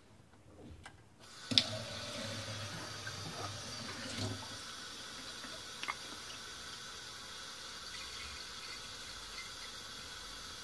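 Kitchen tap running steadily into a sink or pot, starting with a click about a second and a half in.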